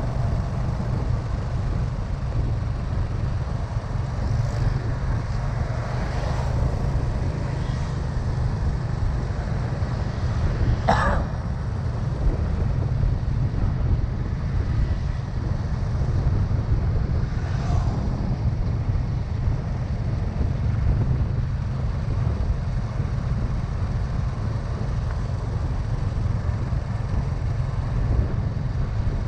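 Motorbike ride: steady engine and road rumble with wind buffeting the microphone. A brief sound of passing traffic, falling in pitch, stands out about eleven seconds in.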